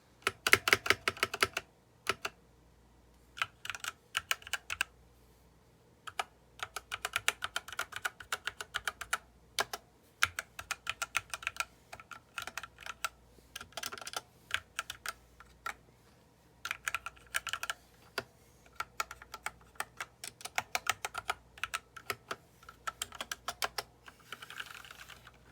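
Typing on a 60% mechanical keyboard with Gateron Yellow linear switches: runs of rapid keystrokes in bursts, broken by short pauses.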